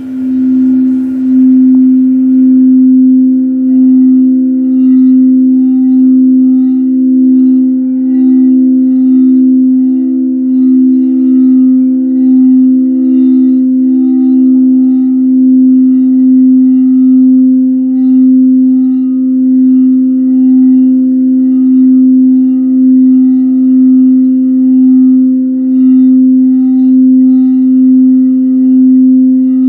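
Tibetan singing bowl played by circling the rim, a loud sustained low hum with a ring of higher overtones. It swells up over the first couple of seconds, then holds steady with a slow wobble in loudness about once a second.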